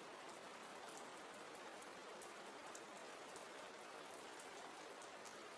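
Faint, steady rain: an even hiss of falling rain with scattered small drop ticks.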